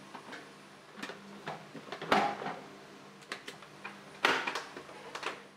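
Light clicks and knocks of plastic and metal parts as a blender jar is fitted and locked onto a stand mixer, about a dozen irregular taps with the firmest near the middle and toward the end.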